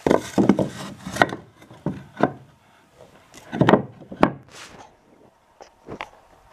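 An unstained pine board being handled against dark wooden beams: irregular wooden knocks with some scraping, closely spaced over the first four seconds or so and then only a few more.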